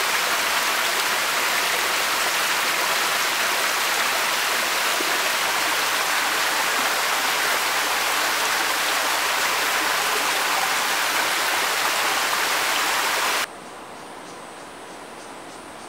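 Steady rushing of flowing stream water, a dense even wash of noise. It cuts off suddenly a couple of seconds before the end, leaving only a faint hiss.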